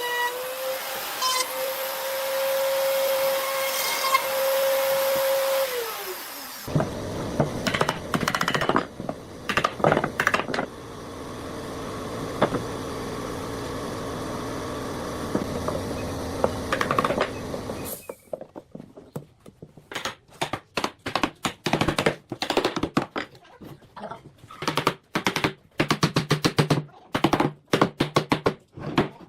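An electric power tool's motor whines steadily, then winds down in pitch and stops about six seconds in. A rough grinding or cutting noise follows until about halfway. The rest is a quick, irregular series of sharp knocks and taps, as of hand-tool work.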